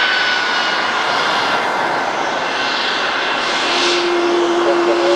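Dassault Falcon 6X business jet's twin Pratt & Whitney Canada PW812D turbofans running loud and steady, with a high whine that slowly drops in pitch in the first second; a low steady hum joins near the end.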